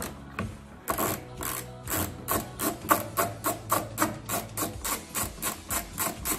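Hand ratchet on a socket extension being worked back and forth to back out a bolt, its pawl clicking in a steady run of short strokes, about four a second.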